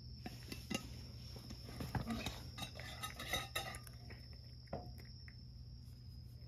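Cat chewing dried sardines, a quick run of small crunches and clicks for about three seconds, then a single click near the end.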